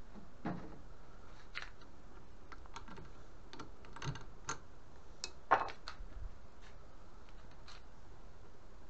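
Irregular light metallic clicks and taps as a small steel pin is handled and loosened from a drill chuck on a small motor's shaft, with one sharper click about halfway through.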